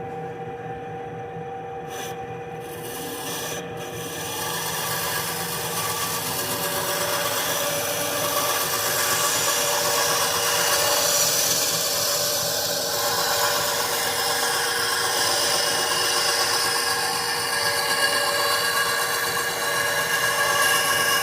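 Harbor Freight benchtop bandsaw running, its blade cutting a curve through a pine 2x4, over the saw's steady hum. Two short clicks come in the first few seconds, then the cutting noise grows louder at about four seconds and stays up.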